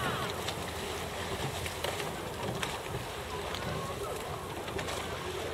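Wind rumbling on the microphone, with a few faint clicks and faint distant sounds.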